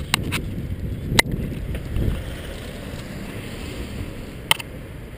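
Wind rumble on the microphone of a handlebar-mounted camera while riding a bicycle, with a few sharp knocks from the bike, the loudest about a second in.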